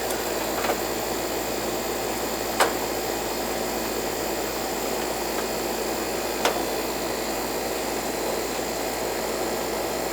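Coleman air-conditioning condensing unit running, a steady whooshing fan-and-compressor noise, with three short sharp clicks about half a second, two and a half and six and a half seconds in.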